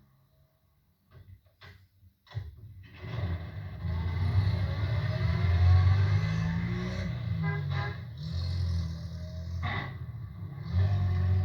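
A motor vehicle's engine. It begins after near silence and a few short clicks about two seconds in, then runs steadily with some rising tones, dipping briefly near the end.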